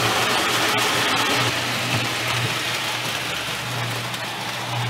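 Marx O-27 tinplate toy train running on three-rail track: a steady low electric-motor hum over the noise of the wheels rolling on the tinplate rails.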